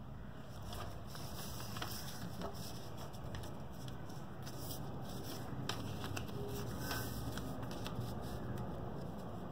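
Lined notebook paper being folded and creased by hand on a tabletop: soft rustling with a few short crinkles and taps, over a steady background hiss.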